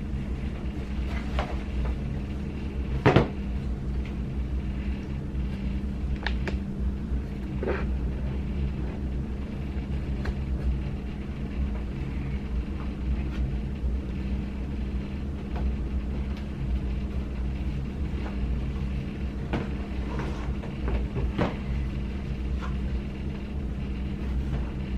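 Scattered light clicks and knocks, one much louder about three seconds in, over a steady low electrical hum.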